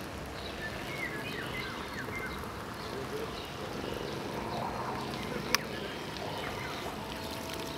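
Balsa RC speedboat's 3300kv brushless inrunner motor running at speed across the water, heard from the shore, with short high bird chirps and one sharp click about five and a half seconds in.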